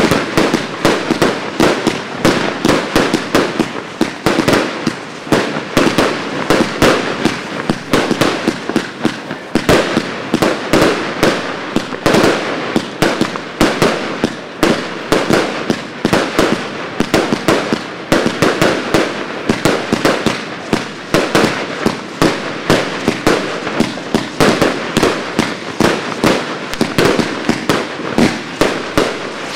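Pangu Fireworks 'Colorful City' firework cake firing shot after shot, several a second without a break: launch thumps and star bursts with a hiss of crackle between them.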